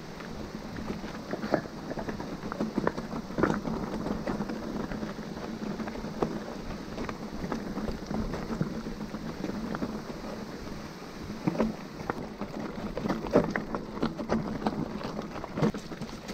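Mountain bike riding a rough trail: steady tyre noise on dirt and stones with irregular knocks and rattles from the bike, busiest about three seconds in and again in the last few seconds.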